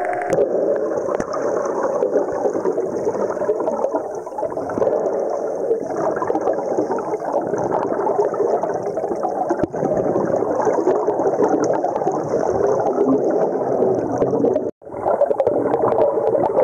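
Pool water gurgling and churning steadily, breaking off for a moment near the end.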